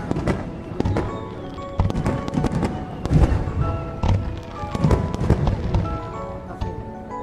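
Fireworks bursting and crackling in a rapid series of bangs, over music with sustained melodic notes.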